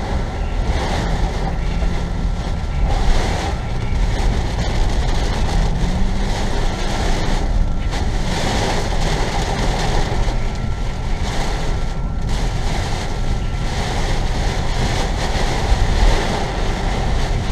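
Heavy thunderstorm rain and gusting wind battering a moving car, heard from inside the cabin along with the car's road noise, loud and steady with surges.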